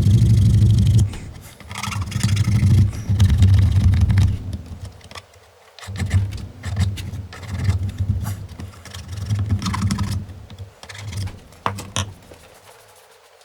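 A hand file rasping back and forth on the freshly cut edge of a motorcycle airbox side panel, in a series of strokes about one a second that die down near the end.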